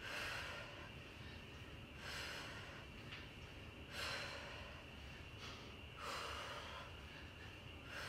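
A woman's heavy, forceful exhalations in a steady rhythm, about one every two seconds, with each rep of overhead kettlebell swings.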